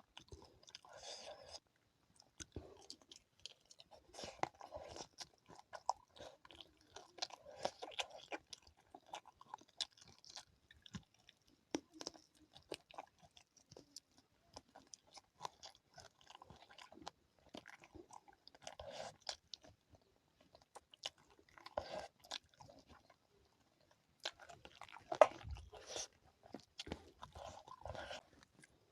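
A person chewing and crunching food close to the microphone, with wet mouth noises and sharp clicks; a louder crunch near the end.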